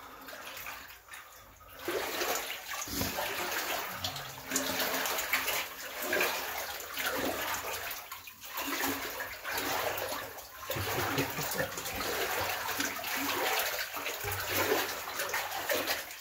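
Wellington boots wading through ankle-deep water, sloshing and splashing in uneven surges with each stride.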